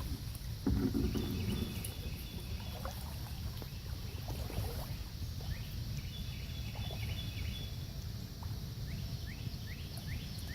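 Kayak paddling on a calm creek: paddle strokes and splashes against a steady low rumble, the loudest splash about a second in. Birds call over it, with a high trill twice and a few quick chirps near the end.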